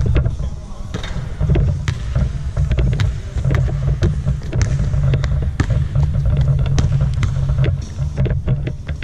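A basketball bouncing on a hardwood court, making irregular sharp knocks over a loud, steady low rumble.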